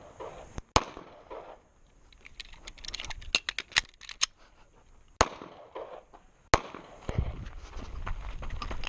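Semi-automatic pistol fired from close by: a quick pair of shots near the start, then single shots about five and six and a half seconds in. Between the shots come a run of quick clicks and scuffs, and from about seven seconds a low rumble of movement.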